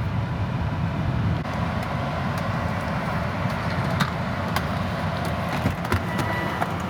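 2005 Volvo XC70 running, a steady low engine drone with an even haze of noise and a few light clicks.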